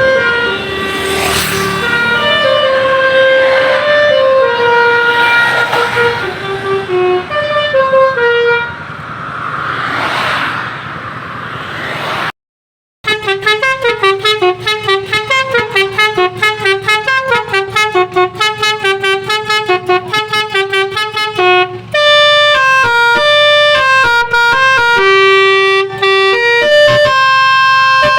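Basuri telolet multi-note air horn on a car playing a tune of stepping notes, with bursts of rushing noise over it. After a short dropout about twelve seconds in, a cleaner, faster run of repeated melodic notes follows.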